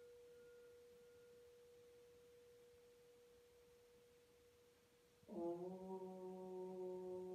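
A singing bowl rings with one steady tone that slowly fades. About five seconds in, a woman begins chanting a long, steady 'Om', louder than the bowl.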